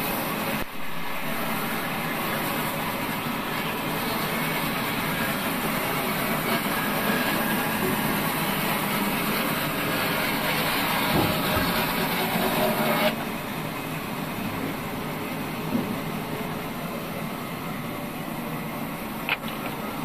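Large sawmill band saw ripping a long timber beam lengthwise: a steady sawing noise of the blade running through the wood. The higher part of the noise drops away about two-thirds of the way through.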